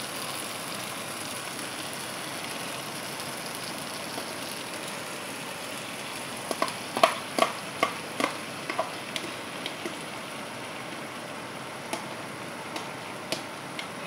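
Tomato and onion sauce sizzling steadily in a frying pan, with a run of sharp clicks from about six and a half to nine seconds in and a few more near the end as a spoon scrapes plain yogurt out of a plastic tub into the pan.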